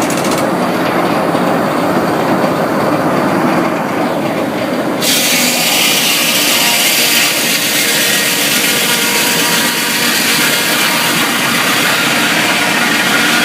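Sawmill head saw and log carriage running, with rattling, clattering machinery noise throughout. About five seconds in, a harsh high-pitched hiss suddenly joins and keeps going.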